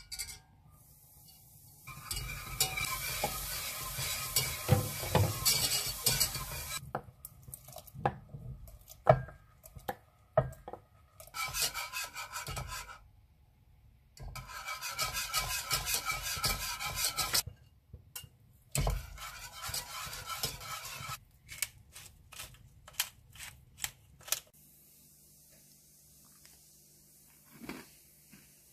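Stirring and scraping in a saucepan, including a wire whisk working through thick soup against the pot, in several stretches of a few seconds each. Short clinks and knocks of utensils fall between them.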